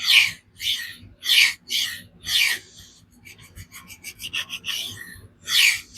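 Magnamax steel knife blade scraped across a diamond sharpening stone. It makes about five firm strokes in the first two and a half seconds, then a run of quicker, lighter strokes, then another firm stroke near the end. This is edge-grinding to raise the burr on the other side of the edge.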